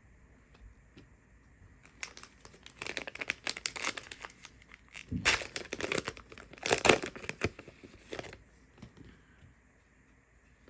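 Plastic wrapper of a trading card pack being torn open and crinkled in the hands, a dense crackling that starts about two seconds in, is loudest past the middle, and stops a little after eight seconds.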